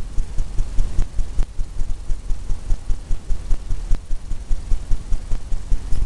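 A paintbrush tapping repeatedly against a stretched canvas, the taps coming as an even run of dull thumps about three or four a second.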